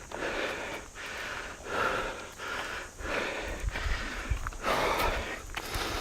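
Heavy, rapid breathing of a hiker labouring up a steep mountain slope: quick, even in-and-out breaths, a little under two a second.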